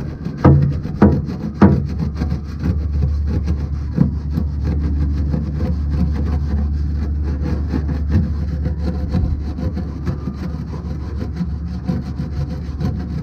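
A small wire brush scrubbing rapidly back and forth along the steel slide rails of a vintage Snap-on KR61 tool box, a dense scratchy rasping, wet with Simple Green cleaner. The brush gives a few sharp knocks in the first two seconds. A steady low hum runs underneath.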